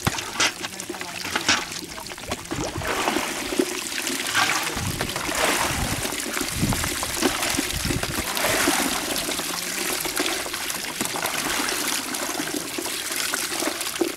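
Shallow water running and trickling steadily down a plastic-sheet chute into a plastic crate, with irregular splashing.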